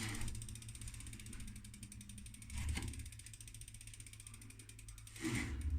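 Bicycle rear wheel spinning freely, its freehub pawls ticking rapidly, spun to spread the Slime sealant around inside the tyre. Two brief louder thumps come about midway and near the end.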